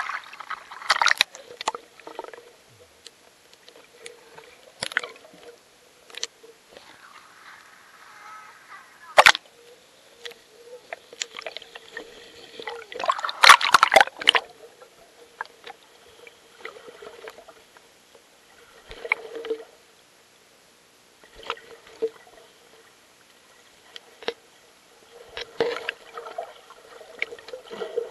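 Creek water sloshing and splashing around a camera as it dips in and out of the surface, in irregular bursts, with a sharp knock about a third of the way in and the loudest splashing about halfway through.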